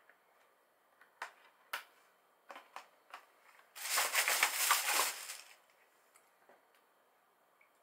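Plastic packaging being handled: a few sharp clicks and snaps, then about a second and a half of loud crinkling just before the middle.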